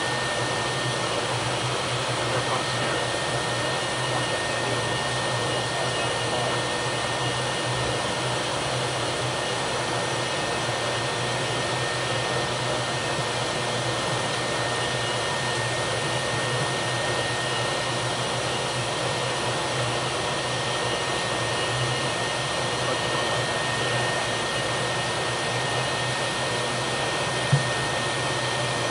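Steady machinery noise in the engineering spaces of a Knox-class frigate's steam plant: a constant rushing roar with a low hum and a steady high whine. A single sharp click near the end.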